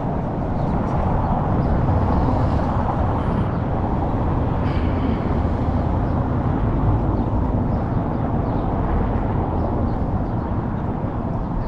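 Wind buffeting an action camera's microphone: a steady, loud rumble with no pauses.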